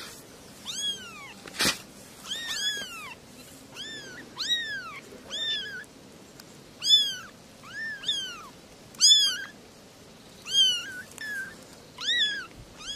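Kittens meowing over and over, short high-pitched calls that rise and fall, sometimes overlapping one another. A single sharp click comes a couple of seconds in.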